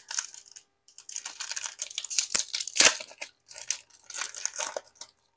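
A Hoops hobby pack of basketball cards being torn open: the wrapper crinkles and rips in several spurts, with one sharp, loudest tear about three seconds in.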